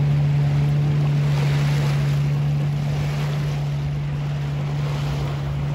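A small sailboat's engine running at a steady, even hum under way, with wind on the microphone and the rush of waves on the water.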